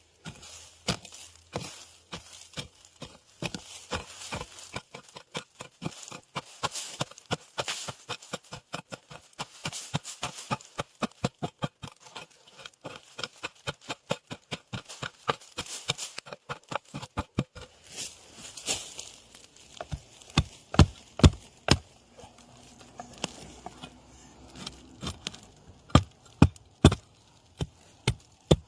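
A digging hoe chopping repeatedly into soil and bamboo roots to free a winter bamboo shoot: a fast run of sharp strikes, with a few heavier blows in the later part.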